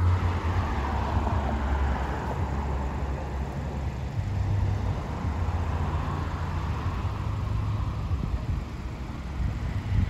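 Road traffic: a steady low rumble of cars, with one vehicle going by in the first few seconds and another coming up near the end.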